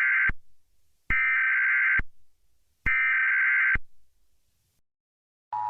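Emergency Alert System SAME header: three bursts of shrill digital data tones, each just under a second long with about a second of silence between them, the first already under way. Near the end the steady two-tone EAS attention signal starts.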